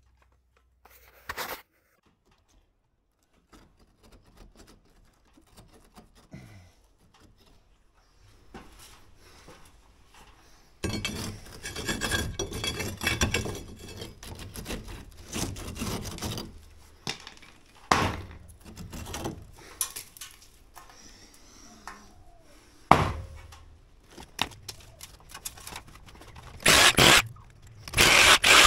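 A steel crowbar levers a face brick loose, with the brick scraping and grinding against its mortar bed for several seconds, then a couple of sharp knocks. Near the end, a cordless drill starts drilling into the brick mortar in loud bursts.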